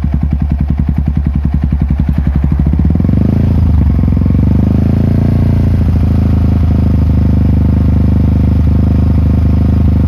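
Yamaha WR 155R single-cylinder engine through a Daytona GP Taper full-system aftermarket exhaust, idling with distinct, evenly spaced pulses. About three seconds in, it is revved up and held at a steady higher speed.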